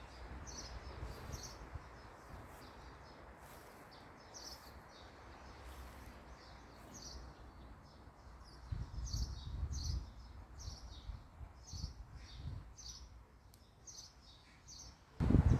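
Small birds chirping over and over, short high-pitched calls a few times a second, over faint outdoor background noise. A sudden louder noise starts just before the end.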